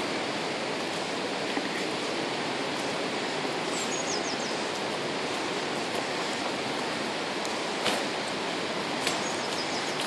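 Steady rush of rain-swollen river water, with a small bird's short high chirps twice and a couple of brief clicks near the end.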